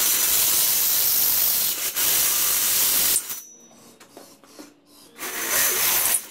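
Cordless drill boring through a steel tube upright, the bit cutting metal with a harsh hiss. It runs for about three seconds with a brief break near two seconds, then runs again for about a second near the end.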